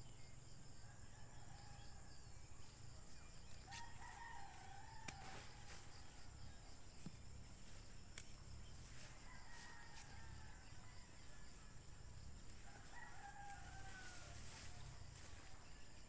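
A rooster crowing faintly three times, each crow a drawn-out call that falls in pitch at the end.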